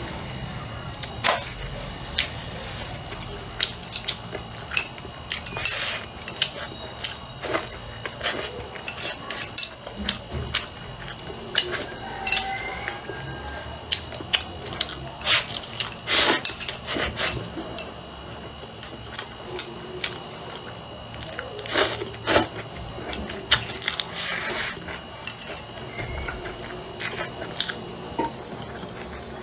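Chopsticks clicking and scraping against a ceramic bowl in irregular sharp taps, with the mouth sounds of close-miked eating and chewing between them.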